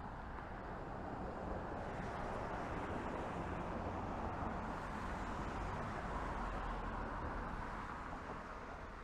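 Road traffic going by, a steady rush of passing vehicles that swells in the middle and fades near the end.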